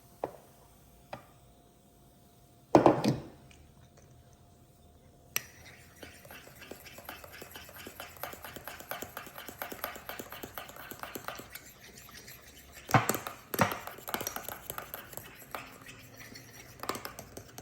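Kitchenware being handled: dishes and utensils knocking and clinking, with a loud knock about three seconds in, a long run of quick small rattling clicks, and two more solid knocks near the middle.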